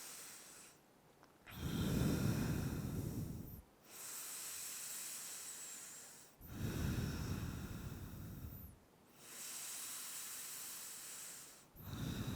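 A person breathing slowly and deeply, held yoga breaths close to the microphone: about three slow cycles, each a quiet hissing breath followed by a louder, fuller one.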